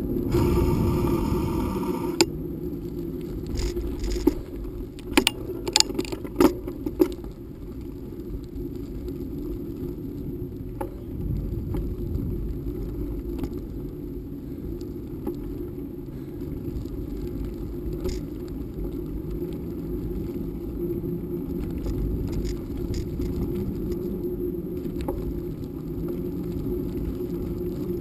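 Bicycle riding on an asphalt road: steady wind noise on the microphone and tyre rumble, opening with a brief buzzing hiss. A few seconds in comes a quick string of sharp clicks and rattles from the bike over bumps in the road.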